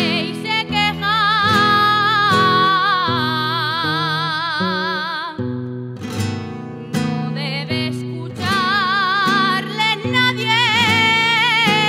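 Folk music: a solo voice sings long, held notes with strong vibrato over strummed and plucked guitars. About halfway through, the voice drops out for a few seconds while the guitars keep playing, then comes back in.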